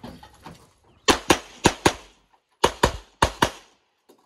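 Tanfoglio pistol fired eight times in four quick pairs, starting about a second in: double taps on the stage's targets.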